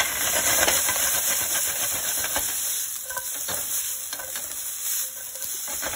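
Cubed stew meat and diced onion sizzling in a hot Ninja NeverStick nonstick frying pan as they are tossed and stirred, with a steady hiss and many small clicks and scrapes of the pieces moving against the pan.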